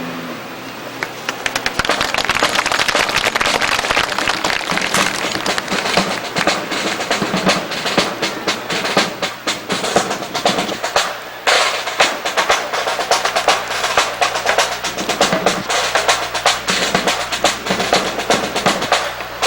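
Snare-drum percussion with rapid rolls and dense sharp clacks, keeping time for a precision rifle drill; a low steady tone joins about halfway.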